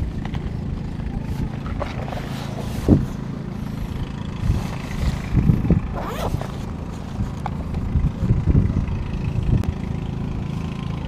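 An engine running steadily nearby, a low, even hum, with a few short knocks and rustles from hands working fishing line.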